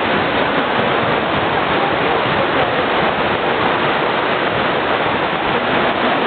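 Steady, even roar of background din in an indoor gymnasium, with no single bounce, whistle or shout standing out.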